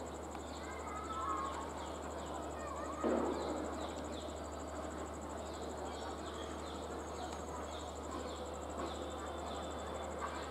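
Insects trilling steadily in a fast, high-pitched pulse, with short chirps over a background hiss and one brief louder sound about three seconds in.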